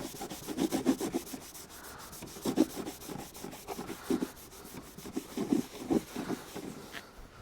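Irregular rubbing and scraping strokes as the engine oil dipstick is drawn out of its tube and wiped with a rag.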